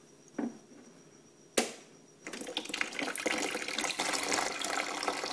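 Screwdriver working the drain plug on a Bonaire Maxicool portable evaporative air cooler's water tank, with a sharp click about a second and a half in. About two seconds in, water starts pouring steadily from the drain into a plastic bucket.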